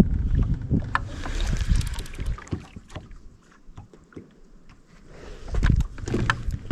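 Wind rumbling on the microphone in a blizzard, with scattered knocks and clicks of gear being handled in a boat. The wind drops away for a moment in the middle, then picks up again near the end.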